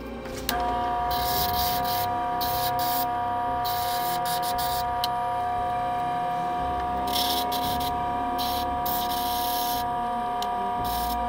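Bench disc sander running with a steady whine. A small wooden strip pressed against the spinning abrasive disc gives repeated short hissing rasps as it is sanded.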